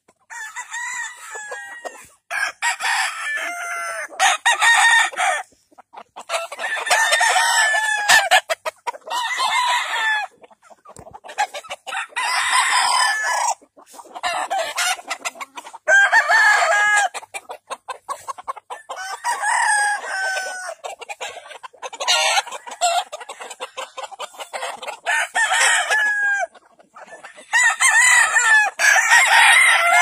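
Gamefowl roosters crowing one after another, with a fresh crow every couple of seconds.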